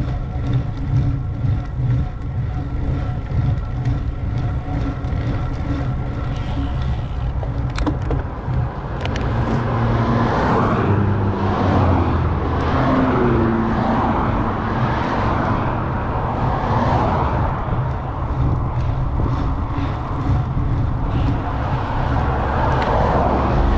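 Road and traffic noise: a steady low rumble that swells into a louder rushing sound from about ten seconds in.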